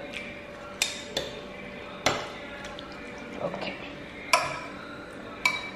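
Metal fork clinking against a ceramic plate while tossing raw chicken pieces in an oily herb marinade: about five sharp clinks, a couple of them ringing briefly.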